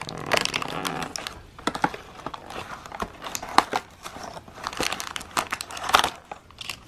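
Cardboard compartment of a cat treat advent calendar being torn open and the treat's small plastic wrapper pulled out, a continuous run of irregular crinkling and crackling rustles.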